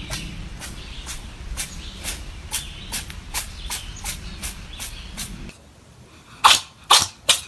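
A rapid run of short, sharp sneezes, about two or three a second, over a low hum that cuts off about five and a half seconds in. The sneezes get louder near the end.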